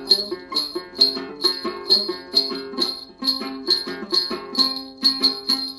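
Đàn tính, the Tày long-necked gourd lute, playing an instrumental interlude of a then folk song: plucked notes on a steady beat of about two strokes a second.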